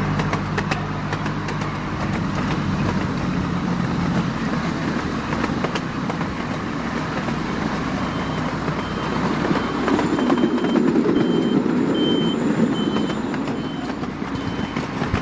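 A vehicle engine runs steadily for the first few seconds. From about halfway through, a reversing alarm sounds a short high beep over and over, about one and a half beeps a second, over a louder passing vehicle rumble.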